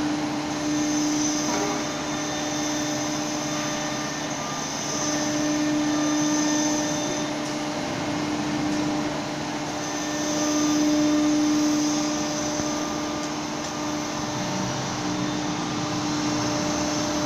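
CNC router machining center running: a steady whirring machine noise with a low hum. A high whine comes and goes over it, gone for a few seconds in the middle, and the overall level swells twice.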